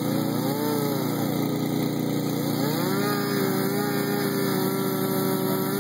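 Gas chainsaw engine running, its pitch rising and falling as the throttle is worked, then held steady from about three seconds in.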